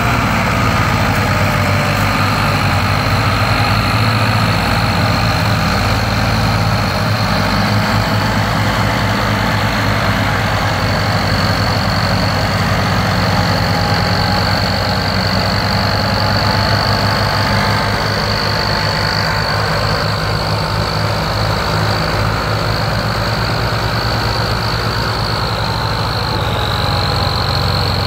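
Diesel tractor engines running hard under heavy load as they strain to pull a loaded sugarcane trolley out of the mud. A steady high whine sits above the engine noise.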